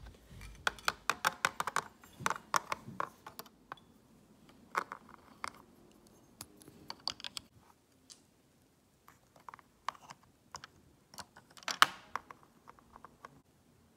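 Lego pieces being handled: irregular runs of light, sharp plastic clicks and taps as a minifigure is pressed onto and lifted off a baseplate's studs.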